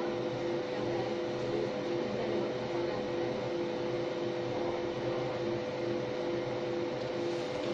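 MOPA fiber laser marking machine running as it color-marks stainless steel: a steady hum with a lower tone pulsing on and off about twice a second.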